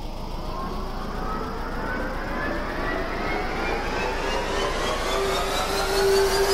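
A slowly rising whine, several pitches climbing together over a low rumble and growing gradually louder, with a steady held note joining about five seconds in: a tension-building riser in a film soundtrack.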